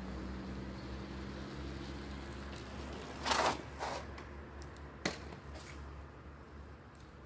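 Bicycle riding over level-crossing rails: a short rattling burst about three seconds in, a smaller one just after, and a sharp click about five seconds in, over a low rumble that slowly fades.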